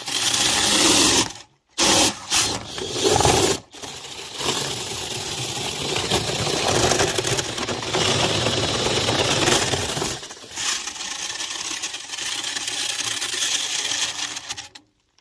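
Power drill spinning a Lint Eater rotary brush on extension rods inside a dryer vent duct, the brush scrubbing lint loose. Two short bursts at first, then a longer steady run that drops a little about ten seconds in and stops near the end.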